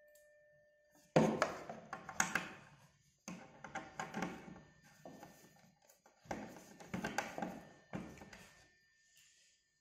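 Hand screwdriver driving a screw into a cabinet panel, in four bursts of turning strokes full of rapid clicking and scraping, with short pauses between them.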